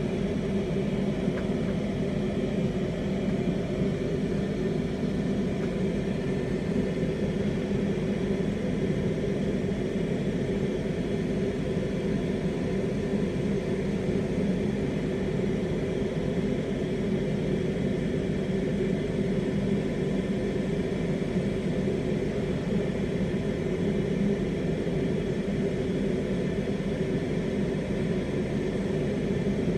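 Lampworking bench torch flame burning steadily with a low, even rushing noise while clear borosilicate glass is worked in it.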